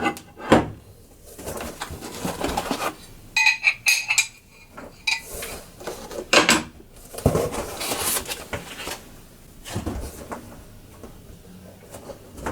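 Aluminium-alloy frame parts of a CNC 3018 milling machine kit being handled and set down: irregular metallic clinks and knocks with handling noise, and a brief ringing clink about three and a half seconds in.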